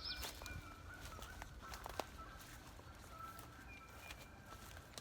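Faint bird calls, thin drawn-out whistles with a short falling note at the start, over a quiet outdoor background, with a few soft knocks or steps.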